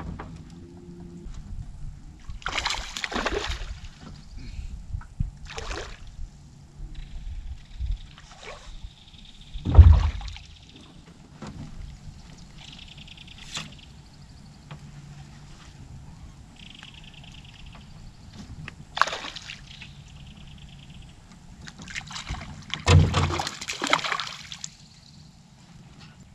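A hooked spotted bass splashing and thrashing at the surface beside the boat during the fight, in several separate splashes, the loudest about ten seconds in and another strong run of splashing near the end.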